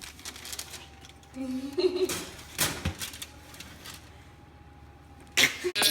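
Clicks and a few sharp metallic knocks of a baking tray and oven door being handled, the loudest knocks about two to three seconds in, with a brief bit of voice about a second and a half in.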